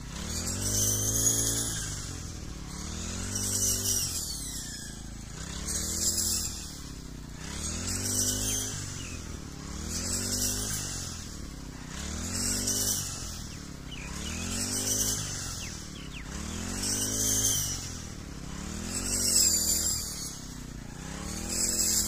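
Petrol brush cutter engine running hard, its pitch dipping and climbing again about every two seconds as the blade swings through the standing wheat stalks and comes free.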